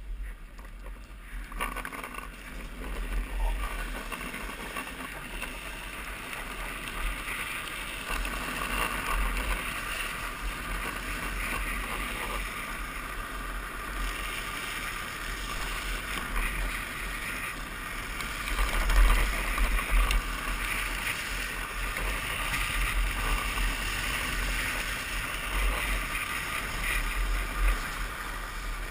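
Wind buffeting the microphone over the steady rolling and sliding of a drift trike's hard plastic-sleeved rear wheels on asphalt during a downhill run, loudest about two thirds of the way through.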